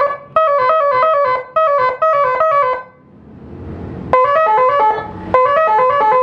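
Electronic telolet horn on a Pulsar motorcycle playing its stepped multi-note telolet tune in short repeated phrases. About three seconds in the tune pauses for about a second while a rushing noise swells, then the phrases resume.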